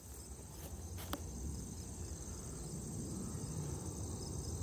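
Steady high chirring of crickets over a low rumble that slowly grows louder, with a couple of faint clicks about a second in.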